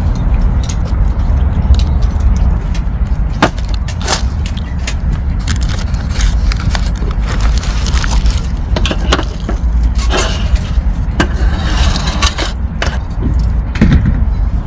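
Steady low rumble with many scattered clicks, knocks and light clattering, busiest in the second half.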